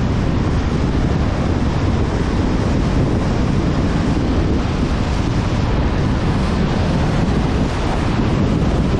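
Wind noise on the microphone of a GoPro mounted on the outside of a car driving along a highway: a loud, steady rush.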